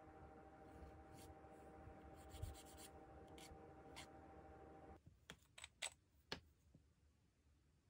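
A nail file scraping faintly across fingernails in a few light strokes over a low steady hum. After a sudden cut, about four sharp clicks come as the end of a twist-action applicator pen is turned.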